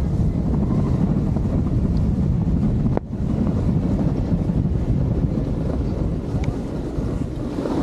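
Wind rushing over a helmet-mounted camera's microphone as a snowboarder rides downhill, mixed with the board sliding over the snow. A brief click about three seconds in.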